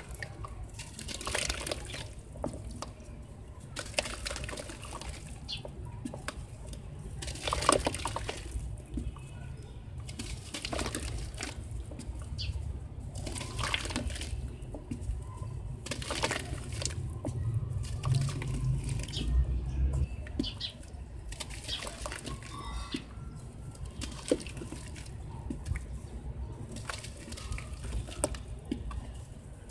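Soft sand slab crumbling in a tub of water as hands break off pieces and squeeze and swish them: irregular splashing, sloshing and wet crumbling, over a steady low rumble.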